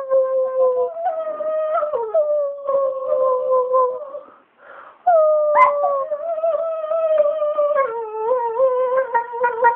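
A dog howling in long, wavering calls whose pitch slowly sags. There is a brief break about four and a half seconds in, then a second long howl.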